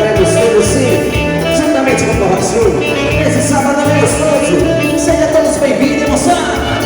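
Live band playing a bolero: a melodic lead over a steady, repeating bass line.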